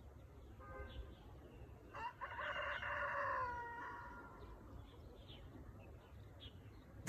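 A rooster crowing once: one drawn-out call starting about two seconds in, falling in pitch at its end.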